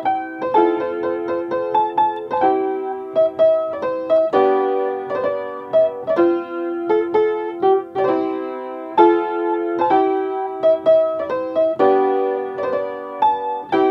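Background piano music: a steady stream of quick notes.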